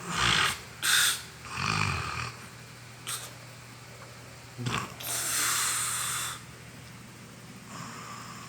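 A sleeping person snoring: a few irregular short snorting breaths in the first two seconds, then after a pause a longer rasping breath about five seconds in, and a faint one near the end.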